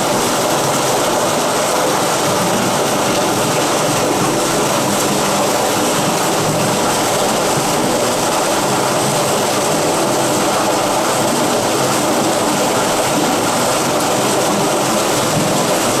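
Water pouring from a drain pipe outfall and splashing into a river pool: a steady, unbroken rushing noise.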